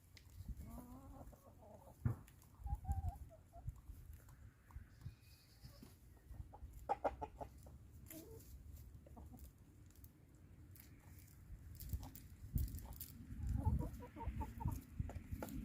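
Backyard chickens clucking in short scattered calls, with low thumps and clicks in between.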